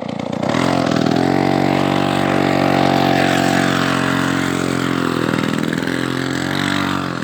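Homemade trike powered by a Ural chainsaw's two-stroke engine, revving up about half a second in and then running steadily at high revs. The revs dip briefly around five seconds in and drop off near the end.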